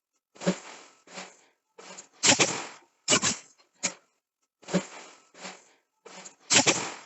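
Forging hammer striking a hot steel billet in a series of uneven blows, roughly one or two a second, each with a short noisy tail.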